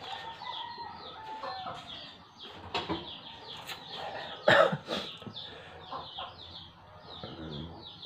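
Chickens clucking, with a steady run of short, falling high chirps throughout. A loud knock comes about four and a half seconds in, and a fainter one near three seconds.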